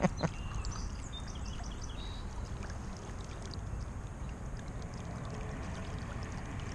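Steady rushing of a trout stream's flowing water, with two short sharp knocks right at the start.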